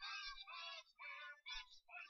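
Faint singing voices from a television playing a cartoon, thin with no bass, in short phrases.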